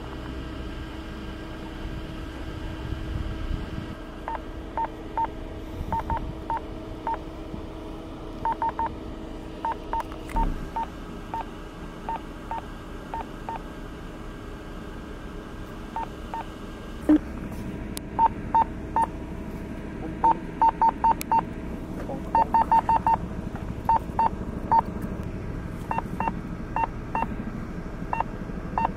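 A run of short electronic beeps, all on one pitch, sounding in irregular groups and coming more often in the second half, over a steady low hum.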